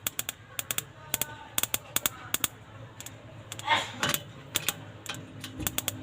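Ignition spark of a Toyota 4K engine's newly fitted electronic igniter snapping across a test gap in sharp, irregular clicks, a few a second, during a spark test.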